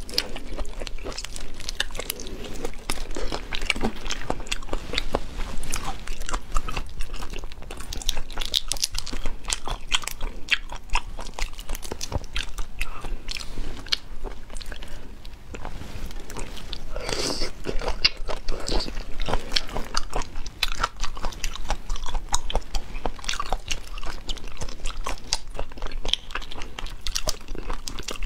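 Eating raw soy-marinated black tiger prawns: fast crackling and crunching of prawn shells with chewing, throughout, with a louder spell of crunching about 17 seconds in.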